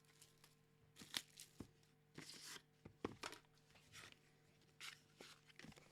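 Faint crinkling and tearing of card packaging being opened and handled, in short scattered bursts with light clicks between them.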